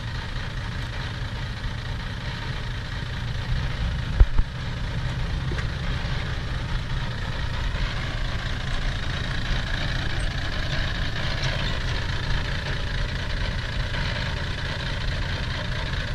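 Six-wheel dump truck's diesel engine running steadily while its raised bed tips out a load of soil, with two sharp thumps about four seconds in.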